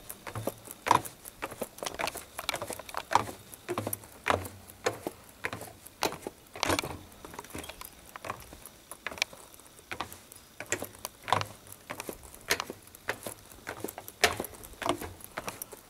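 A series of irregular short taps and clicks, roughly two or three a second.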